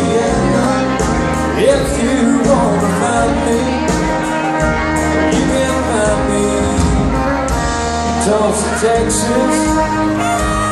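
Live country band playing: electric and acoustic guitars over drums and bass, heard from the audience in a large hall.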